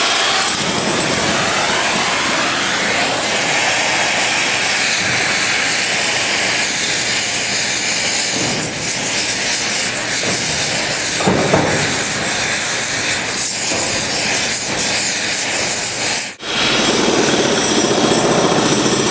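Oxyacetylene torch flame hissing steadily and loudly. It breaks off abruptly about 16 seconds in, and a rougher loud noise follows.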